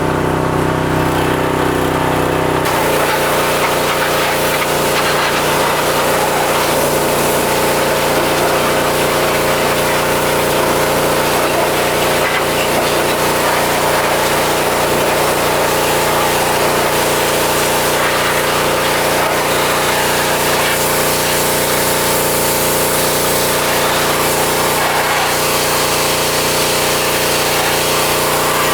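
Pressure washer's small engine running steadily. About three seconds in, the spray gun is triggered: the hiss of the high-pressure water jet joins in and the engine's tone shifts under the load, then both run on steadily.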